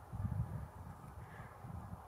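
Low, uneven wind rumble buffeting the microphone, briefly louder just after the start.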